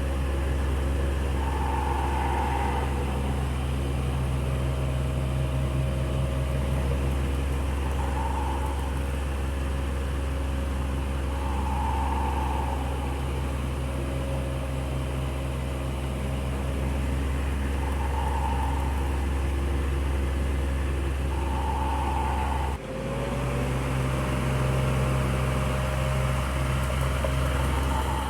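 Electric fan running steadily: a constant motor hum under an even rush of air, with a brief dip about four-fifths of the way through.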